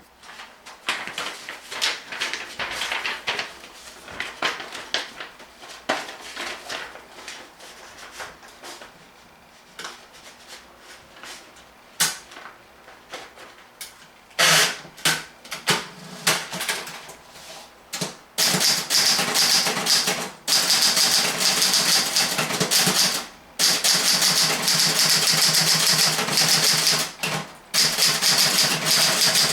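1958 Olympia SG1 manual desktop typewriter being typed on, its sound-deadening foam removed. Keystrokes are light and scattered at first, then from about halfway turn into loud, fast, continuous typing with a few short pauses.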